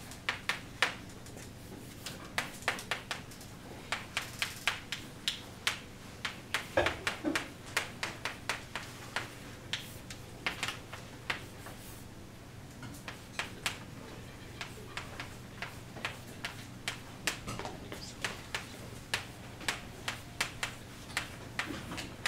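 Chalk writing on a blackboard: quick irregular taps and short scrapes, several a second, pausing briefly about twelve seconds in.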